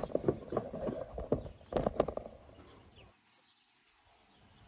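Irregular knocks and clatter of a camera being handled and set in place on the car, loudest about two seconds in, then near silence for the last second or so.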